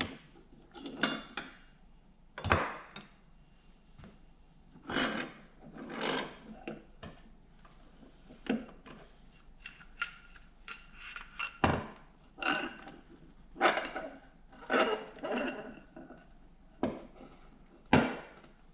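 Steel gears and synchronizer assembly of a Toyota W52 five-speed manual transmission clinking and clanking as they are worked off the output shaft, with the shaft and the bearing puller's threaded rods knocking together. Irregular metallic clinks and short rattles with a ringing edge, a few sharper knocks, the last one near the end.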